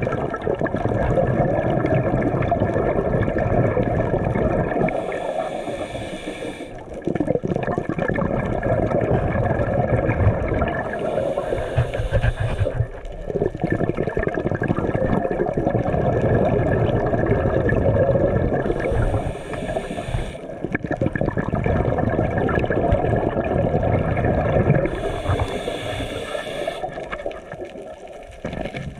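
Underwater noise picked up by a GoPro in its waterproof housing: a steady low rushing of water against the housing. Four short bursts of higher hissing come about every six seconds.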